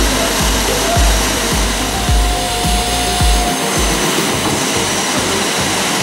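Kärcher wet-and-dry vacuum cleaner running steadily, its hose sucking at laundry. Background music with a steady bass beat plays along and drops out about halfway through.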